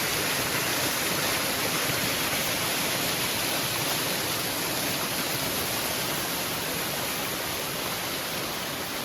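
Waterfall rushing steadily, close and loud, its even hiss of falling water easing off slightly near the end.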